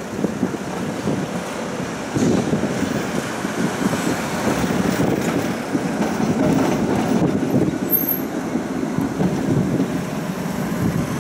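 Tram running along its track, a steady rumble of wheels on rails and running gear, heard from inside the car.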